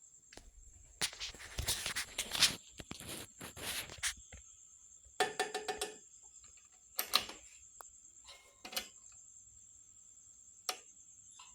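Irregular knocks, scrapes and clicks of hard objects being handled, with a short ringing clatter about five seconds in, over a faint steady high-pitched tone.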